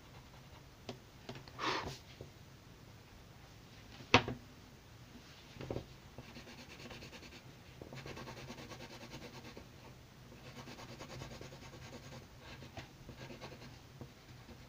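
A wooden graphite pencil scratching on paper in quick back-and-forth shading strokes, in two runs of a few seconds each in the second half. A single sharp tap about four seconds in is the loudest sound, and there is a short rub near the two-second mark, all over a faint steady low hum.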